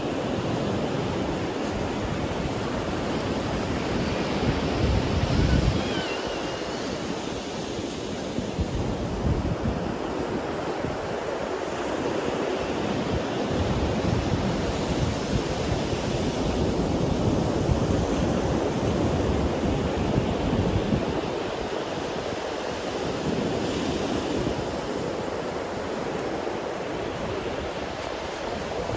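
Ocean waves breaking and washing up a sandy beach: continuous surf that swells and ebbs, louder around five seconds in and again past the middle. Wind buffets the microphone with low rumbles.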